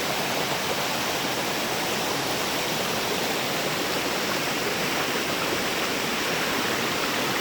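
Steady rush of a jungle stream flowing over rocks.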